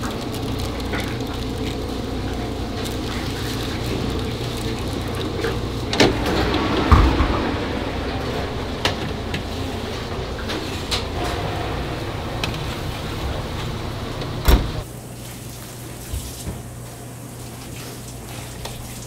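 Steady hum of commercial kitchen equipment with scattered light clicks and knocks of a metal baking tray being handled. About three quarters of the way through comes one sharp knock, after which the hum drops quieter.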